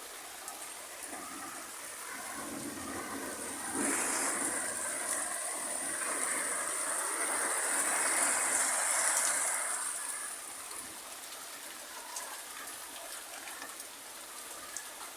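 Rain falling in strong, gusty wind. A rush of wind and rain swells louder about four seconds in and dies back down after about ten seconds.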